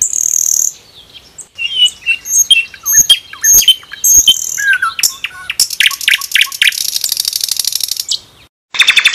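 Nightingale singing: a varied song of short high buzzy notes and clear whistled notes, then long runs of fast repeated trill notes, broken by a brief pause near the end before another rapid trill.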